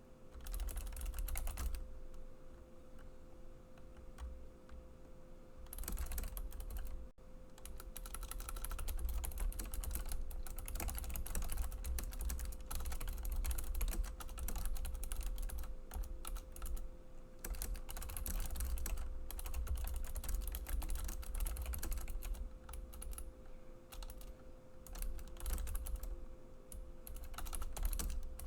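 Rapid typing on a computer keyboard, in spells: a short burst about a second in, then typing almost without a break from about six seconds on, with brief pauses. A steady faint hum runs underneath.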